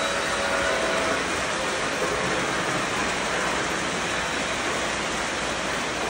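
Model freight train rolling past, a steady rumble of many boxcars' wheels on the curved track, with a high, thin whine that cuts off about a second in.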